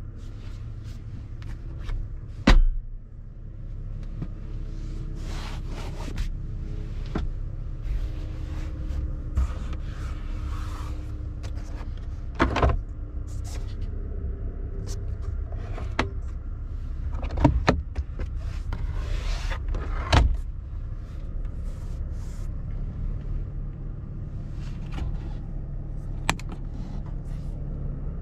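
Inside a pickup's cabin, a series of sharp clicks and knocks as interior lids, latches and trim are handled, the loudest about two and a half seconds in. Under them runs the steady low rumble of the truck idling.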